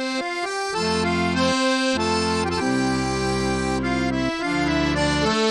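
Instrumental background music starting suddenly: a tune of held chords over a bass line.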